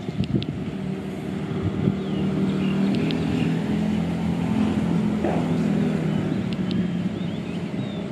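Diesel train engine running steadily with a low hum that rises slightly in pitch about three seconds in, with a few short high chirps over it.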